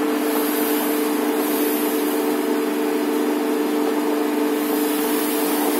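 Colloid mill running steadily with its hopper nearly empty: a constant two-note motor hum over an even hiss.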